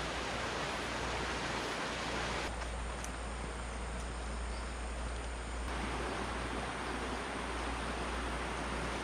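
Steady rushing of a flowing river, with a low rumble under it; the sound thins a little between about two and a half and six seconds in.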